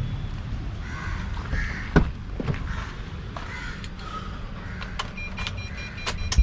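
A few clicks and knocks from a car key going into the ignition, then a pulsing electronic warning chime starts near the end as the ignition comes on. Crows caw several times in the background.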